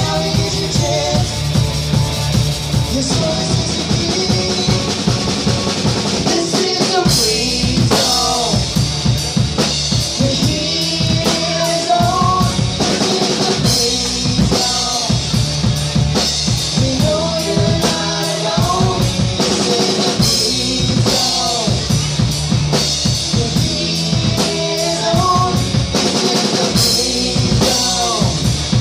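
Live rock band playing amplified: a drum kit keeps a steady beat with bass drum and snare, under electric guitars and electric bass.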